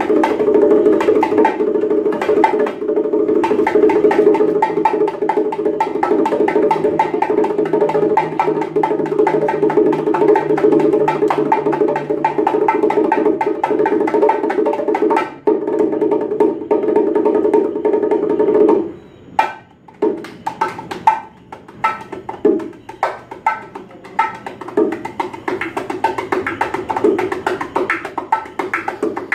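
Bongos played by hand in a solo: a fast, unbroken flurry of strokes that drops off sharply about two-thirds through, then picks up again as sparser, separate hits that grow denser toward the end.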